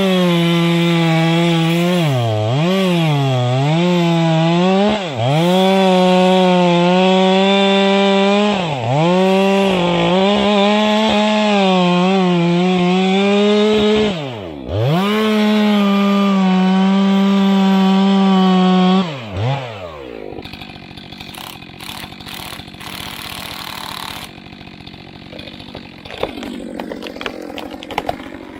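Two-stroke chainsaw running at high revs while cutting wood, its pitch dipping sharply again and again as the chain bogs under load and then recovering. About 20 s in the engine falls away, leaving quieter noise with scattered knocks and clicks.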